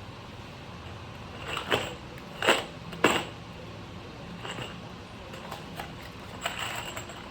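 Handling noise while assembling wooden parts: three sharp clacks about two, two and a half and three seconds in, then a few lighter clicks, over a low steady hum.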